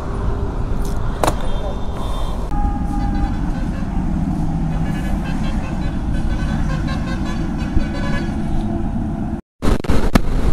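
Steady roadside traffic noise with vehicle horns sounding a few times. Near the end the sound cuts abruptly to a motorcycle riding at highway speed, engine and wind rushing.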